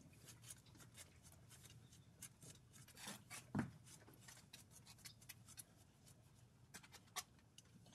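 Faint, quick rubbing strokes of a comb being drawn through a horse's mane, with one short low thump about three and a half seconds in.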